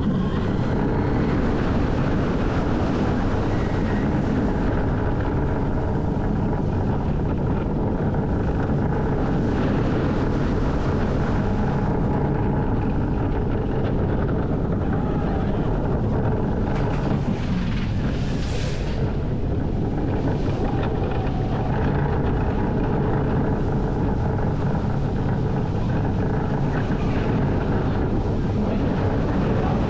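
Steady rush of wind buffeting the microphone over the rumble of Cheetah Hunt's train, an Intamin launch coaster, running at speed along its steel track.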